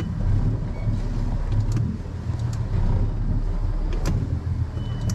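A boat engine running at low speed, a steady low rumble, with a few light clicks and knocks on board.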